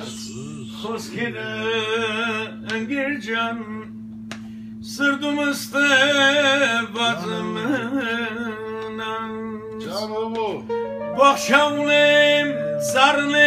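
A man singing an Armenian song in long, ornamented phrases with a wavering vibrato, breaking off briefly about four seconds in. Underneath, an instrumental accompaniment holds a steady low note.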